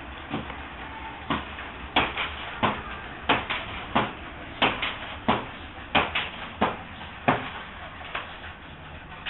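Scrap-metal robot dancer's MIDI-driven joints clanking in a steady rhythm, about three sharp knocks every two seconds, with a low steady hum underneath.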